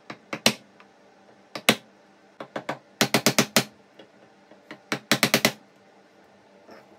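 Sharp knocks of hand-tool strikes on wood: a few single and paired taps, then two quick runs of about five blows each, roughly seven a second.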